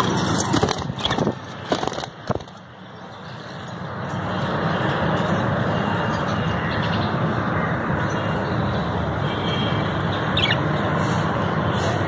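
Steady background noise with a few knocks in the first couple of seconds, then a short budgie chirp or two near the end.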